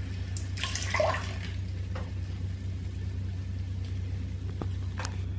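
Liquid splashing briefly into the water of a toilet bowl about a second in, then a few single drips, over a steady low hum.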